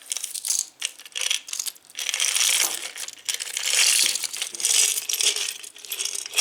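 A jumble of costume jewelry (necklaces, rings, pendants, metal and plastic beads) clattering and clinking as it is tipped out of a small jar and handled. It comes as a dense run of rattling clinks, heaviest from about two seconds in.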